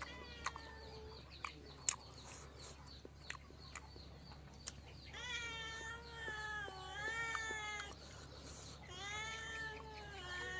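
Long, drawn-out wavering calls: a short one at the start, then two of about three seconds each in the second half. Sharp clicks and taps are scattered through the first half.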